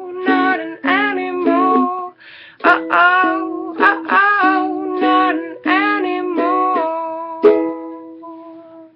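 Acoustic plucked string instrument strumming a chord pattern. The last chord is struck about seven and a half seconds in and fades out.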